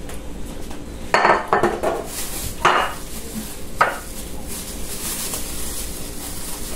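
Metal kitchen utensils clanking and rattling as a cheese grater is taken out and handled, four sharp clanks in the first four seconds, over a soft steady hiss.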